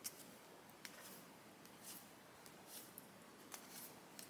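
Near silence with faint brushes and soft clicks of trading cards being slid from one to the next in the hand, a handful of times.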